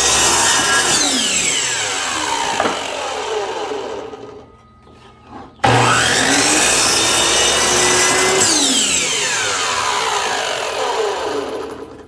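Table saw cutting cedar fence board at a 45° bevel, twice: each time the saw runs through the cut and then winds down with a falling whine. It starts up again suddenly about five and a half seconds in.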